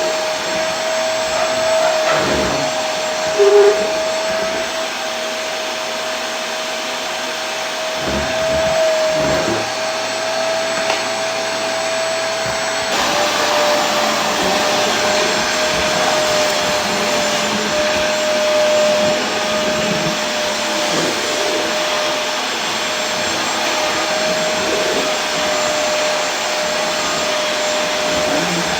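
Vacuum cleaner motor running steadily, an even rushing noise with a constant whine whose pitch steps down slightly about halfway through. A brief short tone sounds about three and a half seconds in.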